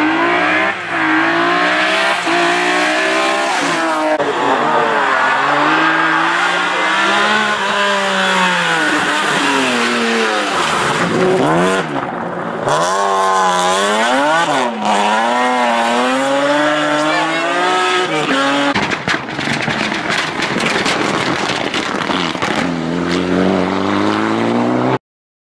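Rally cars passing one after another, engines revving hard and rising and falling in pitch through gear changes. The sound cuts off abruptly near the end.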